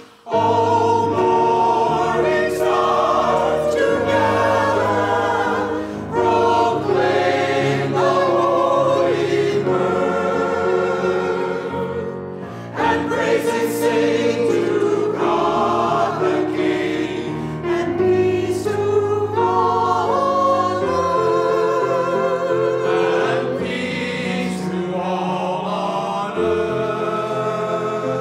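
Mixed choir of men's and women's voices singing in sustained phrases with vibrato, accompanied by piano. The singing breaks briefly about twelve seconds in, then resumes.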